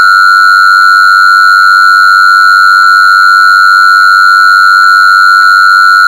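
A single loud, steady electronic tone held at one fairly high pitch, with fainter overtones above it and no change at all: a sound-therapy 'healing frequency' tone played for hormone balance.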